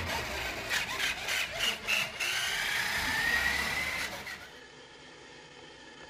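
Electric motor and gears of a remote-controlled toy dump truck whining as it drives across a hardwood floor carrying a cat, the pitch dipping and rising with speed, with a quick run of clicks and rattles about a second in. The whine stops about four seconds in, leaving a faint hiss.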